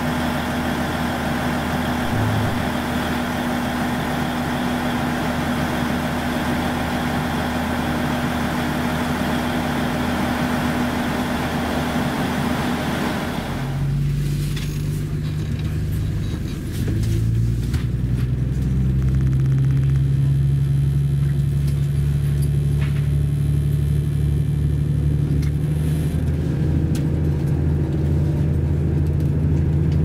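Diesel engines of a KiHa 85 series express train running steadily. About 13 seconds in, the sound changes abruptly to a deeper engine note, which rises in pitch and gets louder a few seconds later as the train starts off.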